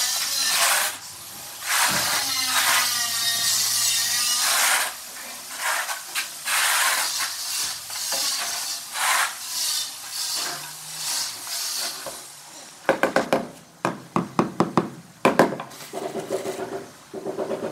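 A notched trowel scrapes and combs tile mortar across a concrete floor in repeated strokes. About thirteen seconds in it gives way to a rubber mallet tapping a large ceramic floor tile down into the mortar, in quick runs of sharp knocks.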